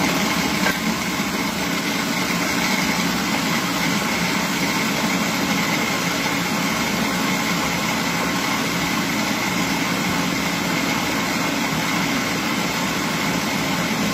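Food processor running at full speed, blending soaked cashews and liquids into a creamy cheesecake filling: a loud, steady motor whine with a constant high tone, switched off abruptly near the end.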